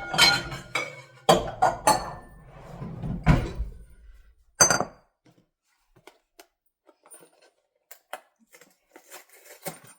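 Kitchen clatter of dishes and utensils being handled on a counter: a run of knocks and clinks, one sharp knock near the middle, then only a few faint ticks.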